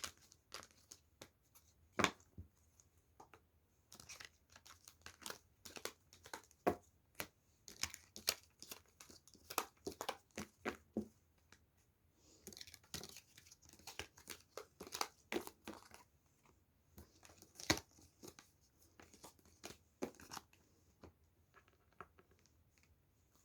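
Tarot cards being gathered up from a table and handled or shuffled: irregular soft clicks, taps and short papery rustles.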